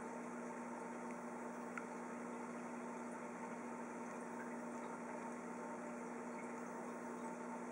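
Steady hum of running aquarium equipment, with a constant bubbling hiss of air bubbles rising through the tank water.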